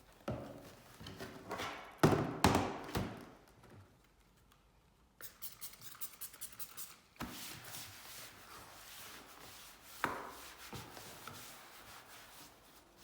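A laptop being handled and wiped down with a sheet of kitchen roll dampened with isopropyl alcohol: a few sharp knocks about two seconds in, then a stretch of papery rubbing and scrubbing over the casing.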